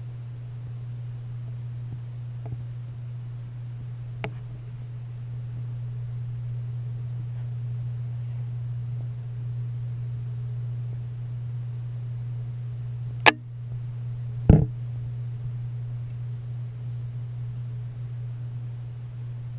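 Steady low hum, as heard underwater, typical of a submersible tank pump running. A few sharp knocks break in, two loud ones about 13 and 14.5 seconds in.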